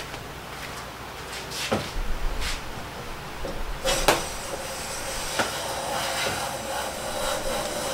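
A few light knocks as a Siegley No. 5 jack plane is set on the edge of a board, then from about four seconds in the steady hiss of the plane cutting a long, thin shaving along the board's edge, with no chatter.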